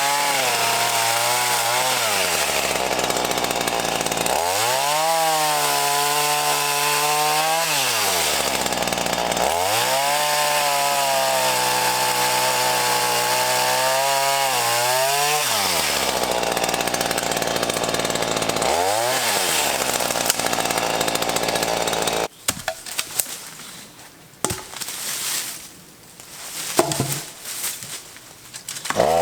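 Black Max 16-inch chainsaw running, its engine revving up and down again and again with the pitch climbing and falling. About seven seconds before the end the saw sound cuts off abruptly, leaving quieter scattered knocks and clatter.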